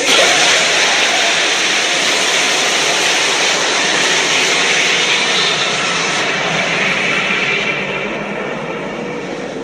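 King Ghidorah sound effect: a long, loud rushing noise that holds steady for about eight seconds and then slowly fades.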